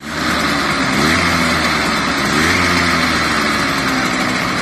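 The 2.5 hp engine of a 1971 Arctic Cat Prowler mini bike running, revved up about a second in and again around two and a half seconds, dropping back in between.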